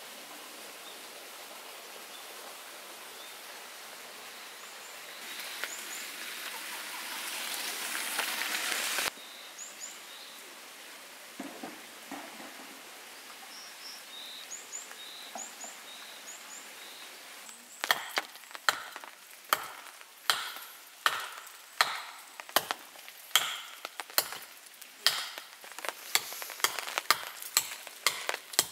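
A steady outdoor hiss that swells and then cuts off abruptly about a third of the way in, with faint bird chirps. In the last ten seconds comes a fast, uneven run of sharp wooden knocks, about two a second: small wood being chopped.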